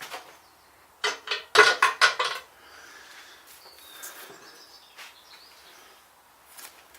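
A quick run of metallic clinks and knocks, a few sharp strikes close together about a second in, then faint scattered handling noise of metal parts and tools.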